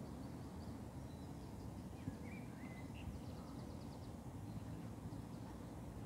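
Steady low outdoor rumble with faint small birds chirping, including a short rapid high trill around the middle.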